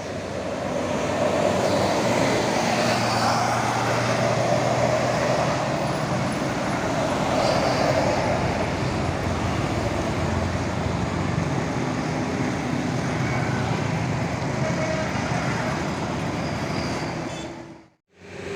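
Tour bus engine working hard as the bus climbs the hill past the microphone, a dense engine-and-road noise that swells in the first couple of seconds and stays loud, then cuts off abruptly near the end.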